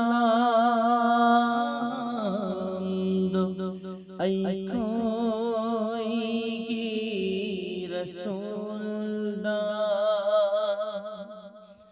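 A man singing a naat in long, drawn-out notes with a wavering pitch. There is a short break about four seconds in, and the voice fades out near the end.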